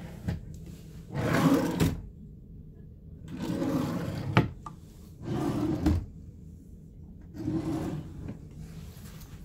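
Desk drawers sliding open and shut four times, each a rubbing slide of about a second, three of them ending in a sharp knock as the drawer hits its stop.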